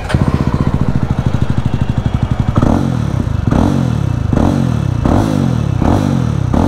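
2024 Jawa 350's single-cylinder engine running through its open silencer with the dB killer removed, giving a loud, deep thump at idle. About two and a half seconds in it is revved in five quick throttle blips, each dropping back to idle.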